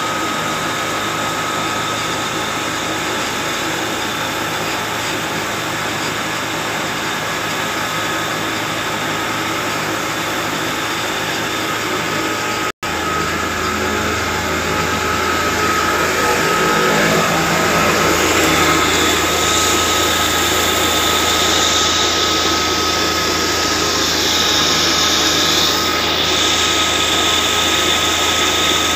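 Stone flour mill (atta chakki) grinding, belt-driven from a Massey Ferguson 240 tractor: a steady, dense machine din of the mill, spinning pulleys and belts and the tractor's diesel engine, with a constant thin whine on top. The sound breaks off for an instant about halfway through.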